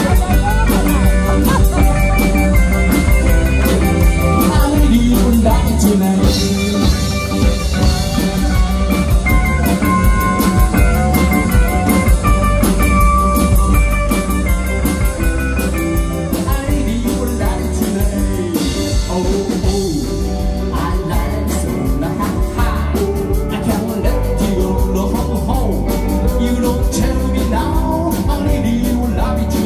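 Live rock-and-roll band playing, with drum kit and electric guitar keeping a steady beat under a male singer.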